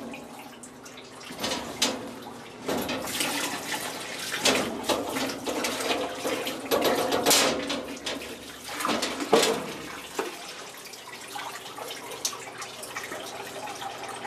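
Water splashing and dripping off a freshly washed lawnmower as it is turned over by hand on a wire rack, with rustles and knocks of handling, one louder knock about nine seconds in. A faint steady hum runs underneath.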